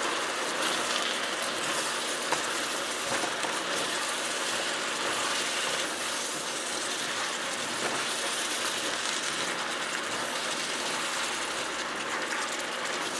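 Vegetables sizzling in a hot steel wok as they are stirred with a wooden spatula: a steady frying hiss with a few light scrapes and clicks.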